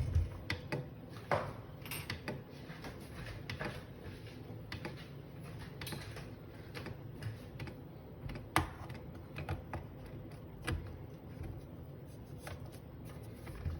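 Scattered light clicks and taps from handling the upper burr assembly of a Breville Smart Grinder while fitting it back into the grinder, with one sharper click about two-thirds through.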